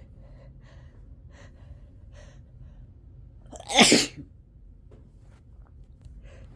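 A person sneezes once, loudly, a short explosive burst nearly four seconds in.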